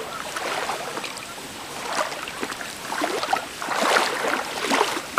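Pond water sloshing and swishing around a wader's legs as a person walks through thigh-deep water in neoprene waders, in uneven surges with each stride, loudest near the end.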